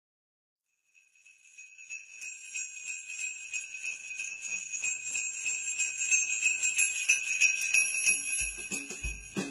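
Jingle bells shaking steadily as the intro of a Christmas song, fading in about a second in. Near the end a deep beat starts, about two thumps a second.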